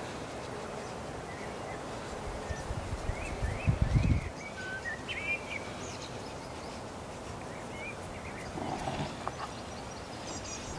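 Outdoor ambience: a steady background hiss with small birds chirping now and then, mostly in the first half, and a brief low rumble about four seconds in.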